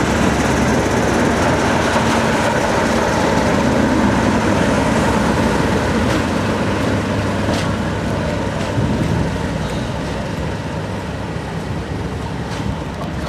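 A Class 37 diesel-electric locomotive, its English Electric V12 diesel engine running, passes close at the tail of a passenger train and moves away, along with the train's wheels running on the rails. The sound is a steady rumble that fades slowly over the second half.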